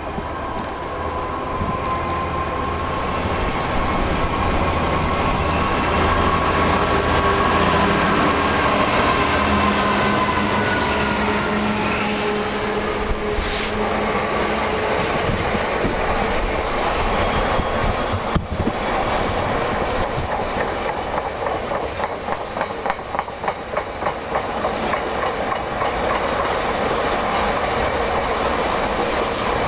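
A GB Railfreight Class 66 diesel-electric locomotive passes with its engine running, its pitch falling slightly as it goes by. It is followed by a long train of hopper wagons rolling past, whose wheels click rhythmically over the rail joints in the second half.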